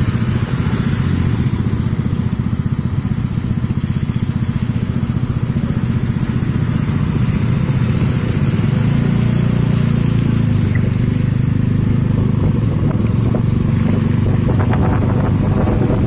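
Small motorcycle engine running steadily close to the microphone while riding, a low rapid pulsing drone with road and wind hiss over it.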